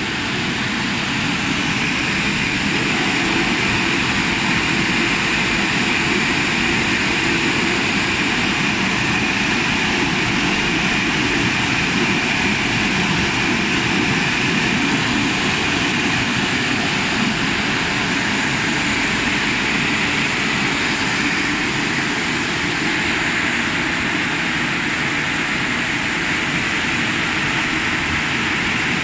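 Drying blowers of a CF-330 rollover car wash machine running, a steady loud rush of air from the top nozzle blasting over the vehicle's body, swelling slightly over the first few seconds.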